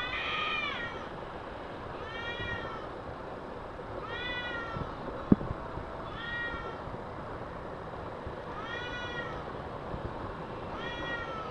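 Domestic cats yowling at each other in a fight standoff: six long, drawn-out calls that rise and fall in pitch, about one every two seconds. A single sharp click about halfway through.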